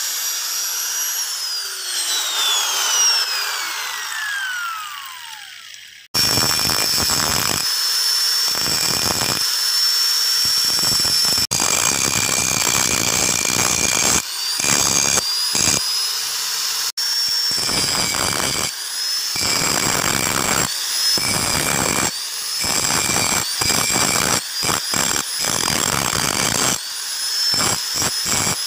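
Angle grinder winding down with a falling whine over the first few seconds, then running at speed and grinding the edge of a steel knife blade. Toward the end it comes and goes in many short passes as the disc is pressed to the blade and lifted off.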